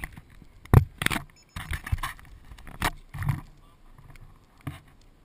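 Irregular knocks, clicks and rubbing of hands handling a Parkzone Extra 300 RC airplane right at its nose-mounted GoPro, with the electric motor off and the propeller still.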